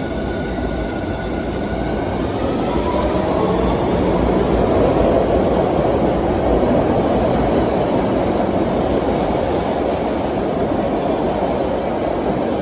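MBTA train running past at close range: a steady, loud noise of wheels on rails that swells slightly toward the middle. A hiss of high noise comes in for a couple of seconds around two-thirds of the way through.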